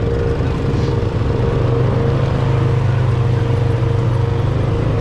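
Honda ATV engine running steadily at low revs, a continuous hum that grows slightly stronger about a second and a half in.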